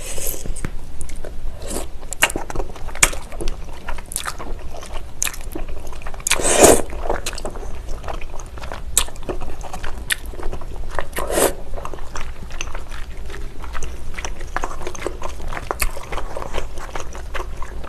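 Eating sounds: wide, chewy Chinese glass noodles and rice cakes in thick spicy sauce being slurped and chewed, with chopsticks clicking and scraping in the plastic container. The loudest slurp comes about six and a half seconds in, another near eleven seconds.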